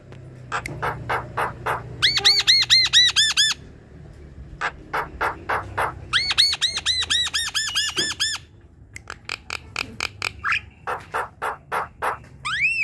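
Javan myna singing: runs of sharp clicking notes at about five a second alternate with quick series of short, arched whistles, and a falling whistle comes near the end.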